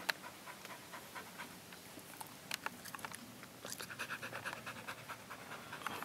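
Siberian Husky panting with its tongue out, a quick train of short breaths that grows louder and faster a little past halfway. There is one sharp click right at the start.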